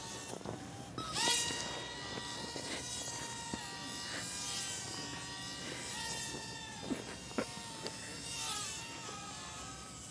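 Small electric motor and propeller of a micro RC Cessna whining in flight. The pitch jumps up sharply about a second in as the throttle opens, then shifts up and down with throttle changes. A few short clicks come near the end.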